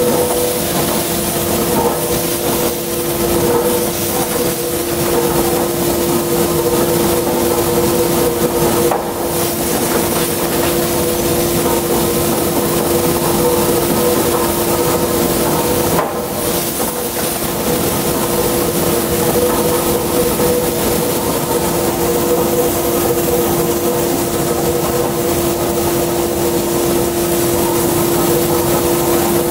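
Steady, loud din of forge-shop machinery: a constant hiss with two steady humming tones, without distinct hammer blows.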